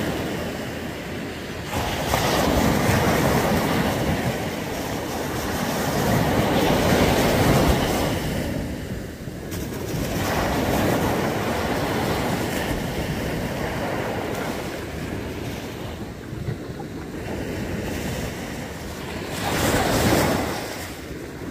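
Small surf waves breaking and washing in over the shallows: a rush of foaming water that swells and falls back several times, a few seconds apart.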